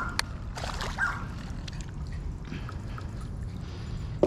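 Water splashing and dripping at the surface, with a few sharp splashes in the first second or so and a loud knock near the end.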